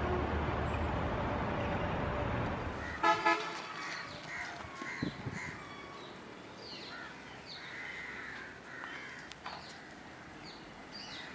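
Steady street traffic noise, then a vehicle horn gives two quick toots about three seconds in. After that the background goes quieter and birds chirp.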